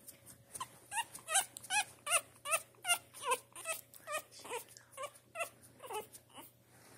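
A three-week-old French bulldog puppy whimpering in a quick string of short, high-pitched cries, about two or three a second, each rising and falling in pitch.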